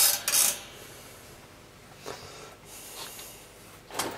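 A person's sharp breath out through the nose close to the microphone at the start, then low room sound with a few faint short noises. Another short breath or snort comes near the end.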